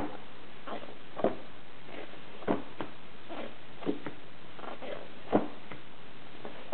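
Large sheets of photo paper turned over by hand, each one landing on the stack with a short papery slap about every second or so, over a steady hiss.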